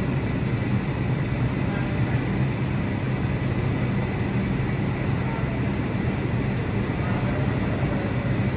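Subway train standing at the platform with its doors open: a steady low hum and rumble from the stopped car's equipment, with a faint steady high whine above it.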